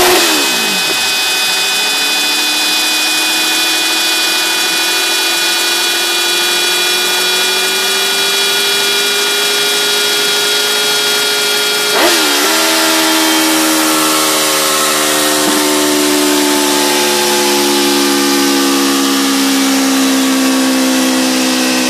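Kawasaki Z1000 inline-four with an IXIL exhaust on a roller dyno: at the start the revs fall away sharply at the end of a full-throttle run. Then comes a steady whining drone from the engine and the spinning dyno roller, its pitch creeping slowly up. A sharp click about twelve seconds in is followed by a slightly lower, slowly falling whine.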